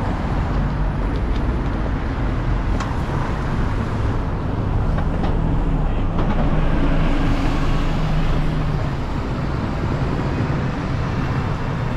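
Steady city street traffic noise, with a coach bus passing close by; its engine hum swells to the loudest point around the middle and then fades.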